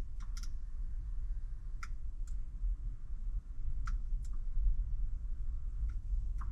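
Kia Sorento power mirror control switch being pressed and released, short clicks in pairs about every two seconds, over a steady low hum.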